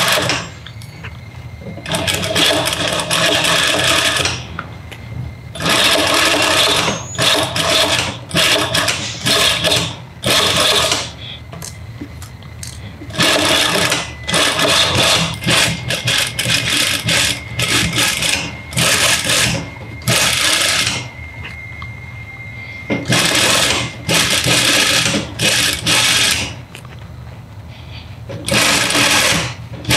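Sewing machine stitching through fabric and batting in short runs of one to three seconds, with brief pauses between them as the work is turned along a curved seam.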